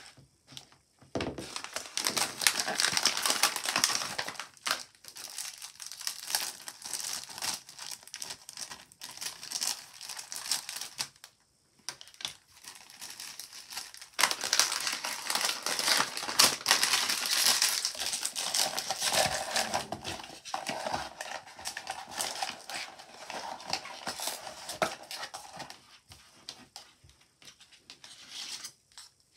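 Foil-lined plastic blind-box wrapper being crinkled and crumpled by hand: two long stretches of dense crackling with a short pause a little before the middle, dying away near the end.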